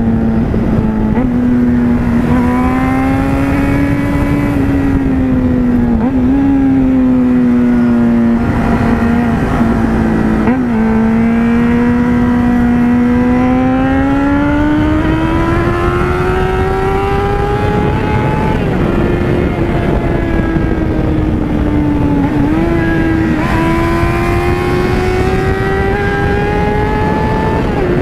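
Yamaha FZ6N's 600 cc inline-four engine running under way, its pitch climbing and settling with the throttle and dipping briefly about three times, over wind rush on the microphone.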